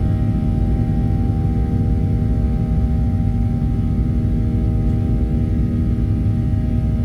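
Steady cabin noise inside a Boeing 737-700: a low, even rumble with several constant hum tones over it.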